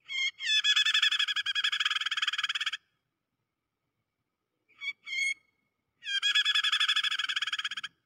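Prinia (prenjak) distress chatter, the 'kejepit' call of a caught or pinched bird: two long bouts of fast, rapidly repeated scolding notes, each about two and a half seconds, with a short pair of notes between them.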